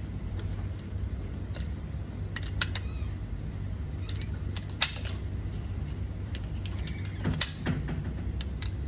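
9 mm cartridges being pressed by hand into a CZ Scorpion EVOL magazine: a few irregular sharp clicks, the loudest about halfway through, over a steady low hum.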